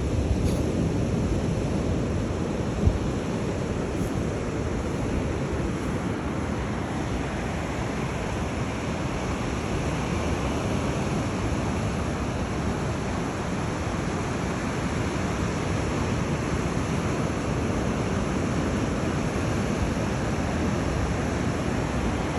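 Ocean surf breaking: a steady wash of big waves, with a short bump about three seconds in.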